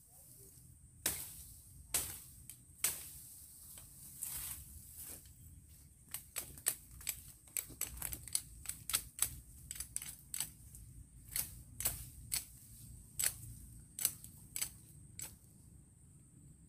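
Sharp cracks and snaps as thin woody stems in a thicket are hacked and broken off, with leaves and branches rustling. A few single loud cracks come first, then a quick, irregular run of them, two or three a second, through the middle.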